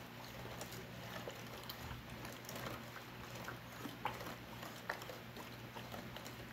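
Wooden spoon stirring a thick sauce in a stainless steel pot: soft sloshing with irregular light knocks and scrapes of the spoon against the pot, two sharper knocks about four and five seconds in. A faint steady hum underneath.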